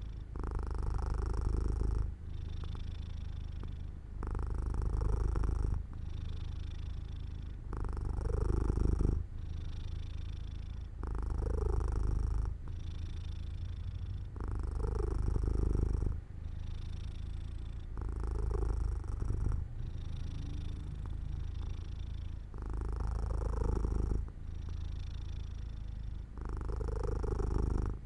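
Domestic cat purring, a continuous low rumble that swells and eases with its breathing, about once every three to four seconds.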